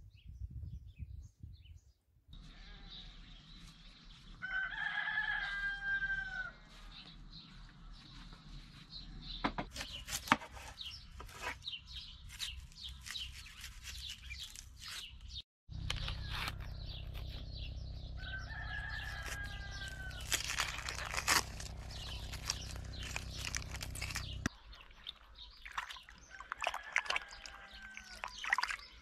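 A rooster crowing twice, each crow holding level and then falling away, among scattered knocks and clatter.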